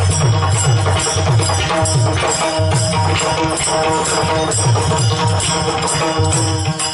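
Marathi Varkari bhajan music: a steady, rhythmic drum pattern with regular cymbal strokes over held melodic tones.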